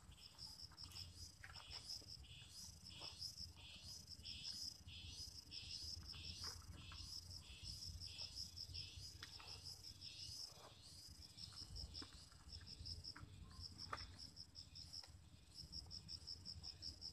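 Insects chirping in a steady run of short, high pulses, faint, with the pulses coming faster in places. A few faint ticks are mixed in.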